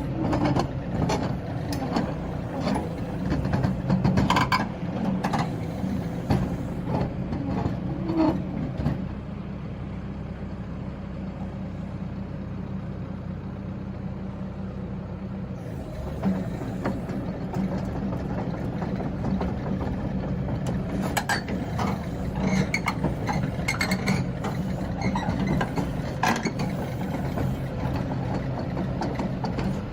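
CAT 313DCR excavator's diesel engine running steadily, with repeated clanks and knocks from the working machine. From about nine seconds to sixteen seconds only the steady engine hum is heard, then the clanking resumes.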